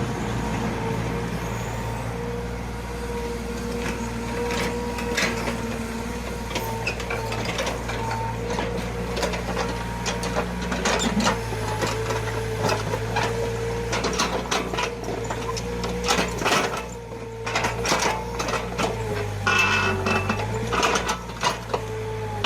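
Small hydraulic excavator working: its diesel engine runs steadily under a steady high whine, and from about eight seconds in frequent knocks and clatters of the machine at work come thick and fast.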